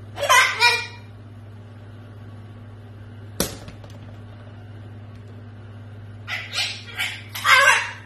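White cockatoo talking: two short mimicked words about half a second in, then a quick string of short phrases near the end. A single sharp knock comes about three and a half seconds in, over a steady low hum.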